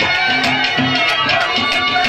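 Instrumental accompaniment of a Haryanvi ragni: a hand drum keeps a steady beat under held melody notes, with no singing.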